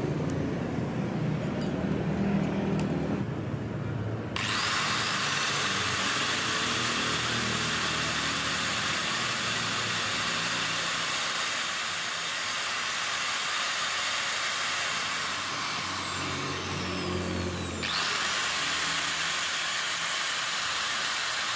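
Makita 9553 angle grinder, newly rewound with a new armature and stator, switched on and running at speed. It winds down once past the middle and is switched on again near the end. It runs normally, with no rubbing of the armature against the stator.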